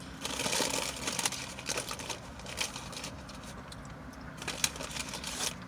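Rustling, crinkling and irregular clicking of things being handled, busiest in the first second and again near the end.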